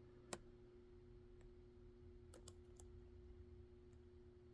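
A few faint, sharp metallic clicks of lock picks and tension tool working in an EVVA DPI dimple lock. There is one click about a third of a second in and three more close together around two and a half seconds in, over a faint steady hum.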